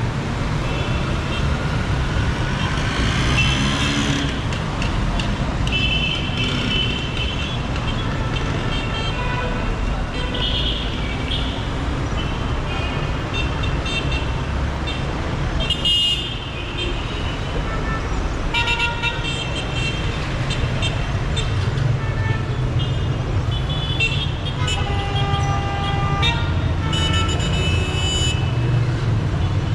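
Dense city street traffic: engines running in a steady low rumble, with frequent short horn toots from many vehicles throughout, and voices in the background.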